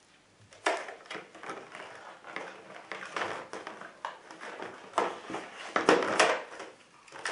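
Hands handling plastic packaging and parts while unboxing: irregular rustling, crinkling and clicks that start about a second in and come in clusters, the loudest about two thirds of the way through.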